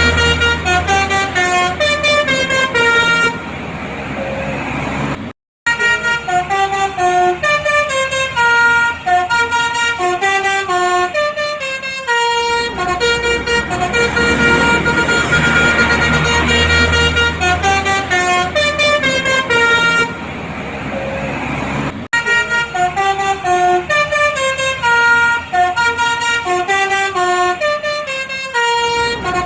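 Telolet bus horn, a multi-trumpet electric air horn, playing a stepped melody. The same tune repeats several times, broken once by a brief gap, over a low engine rumble.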